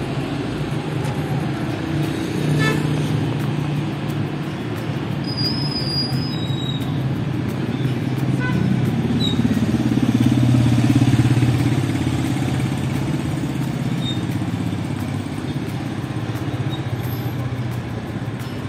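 Street traffic: motor vehicle engines running past, with one vehicle passing closest and loudest about ten to twelve seconds in.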